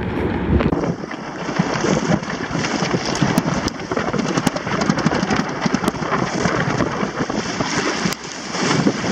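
Choppy waves slapping against the hull of a Hobie sailing kayak, with spray dashing over the bow: a dense, irregular rush of splashes. The boat is pounding through a lumpy sea in about 20 knots of wind.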